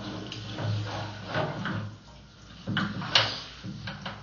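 Irregular knocks and rattles over a low steady hum as a sewer inspection camera's push cable is drawn back through the pipe.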